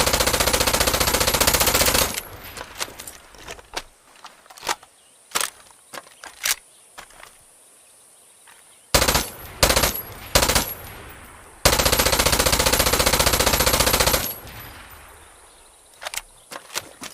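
PPSh-41 submachine gun firing full-automatic at its very high rate of fire. A long burst cuts off about two seconds in, three short bursts come around nine to ten seconds in, and another long burst runs from about twelve to fourteen seconds in. Scattered single sharp cracks fall between the bursts.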